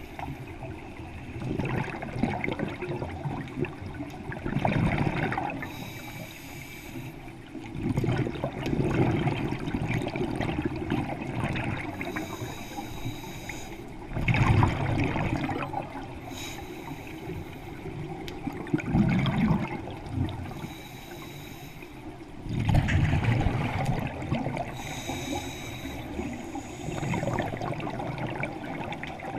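Scuba diver breathing through a regulator underwater: a low bubbling rush of exhaled bubbles alternating with a short hiss of inhalation, about five breaths, one every four to five seconds.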